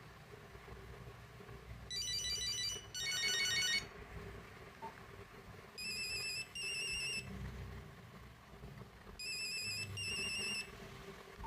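Nokia 8250 monophonic ringtone playing from the phone's speaker: three short bursts of beeping melody a few seconds apart.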